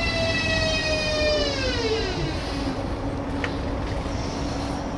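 Traction inverter and motor whine of an ES2G Lastochka electric multiple unit, falling in pitch as the train brakes. The whine drops steeply and dies away about two seconds in as the train slows to a stop, leaving a steady low running rumble.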